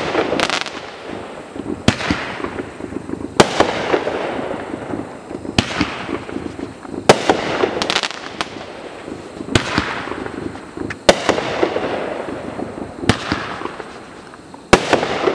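Mad Ox 'Death Ray' 200g fireworks cake firing its shots: about ten sharp reports, one every second or two, each followed by a spell of crackling from the bursting stars.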